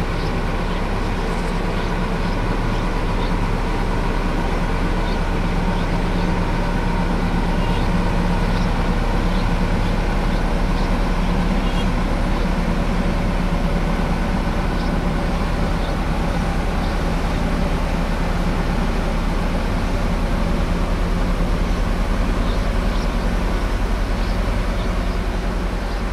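A large engine running steadily at an even speed, a low continuous drone with no change in revs.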